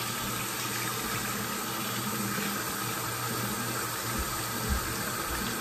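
Bathroom sink tap running steadily into the basin while the water is brought up to warm. Two soft low bumps come near the end.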